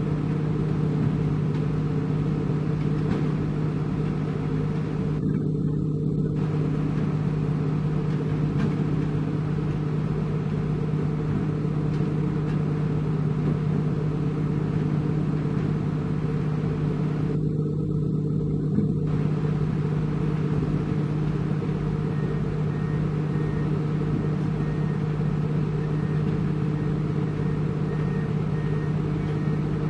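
Diesel engine of heavy construction equipment running steadily at an even speed, a constant low hum.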